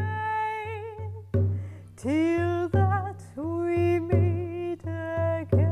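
A woman singing a slow melody with vibrato over the steady low drone of a bowed string instrument, with soft frame-drum beats about every 0.7 seconds.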